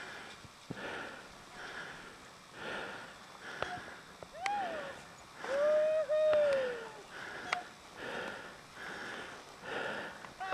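Heavy breathing close to the microphone, about one breath a second. A short hooting cry about four and a half seconds in is followed by a longer, louder hoot that falls away at its end.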